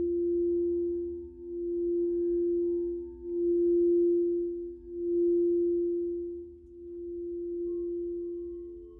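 Singing bowls holding a steady low tone that swells and fades every second or two. A second, higher tone joins near the end.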